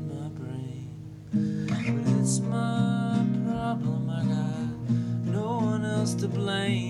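Classical guitar strummed, chords ringing on, with a fresh strum about a second in.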